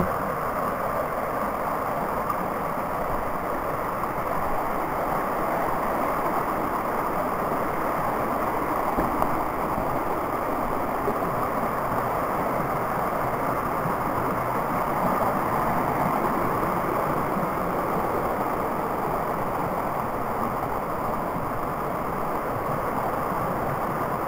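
Rocky woodland brook rushing and tumbling over boulders: a steady, even wash of moving water.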